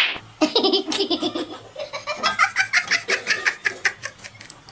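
A person laughing in a long run of quick pulses, some low and some higher-pitched.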